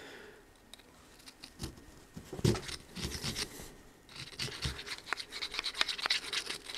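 A screwdriver scraping loosened rust out of the inside of a chrome steel socket. A few metal knocks and clicks about two to three seconds in, then rapid continuous scraping from about four seconds in.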